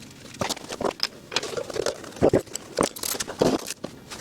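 Metal parts clinking, knocking and scraping in an irregular run of separate hits, a few louder than the rest: a brake dust shield and wheel hub assembly being handled and fitted onto the steering knuckle.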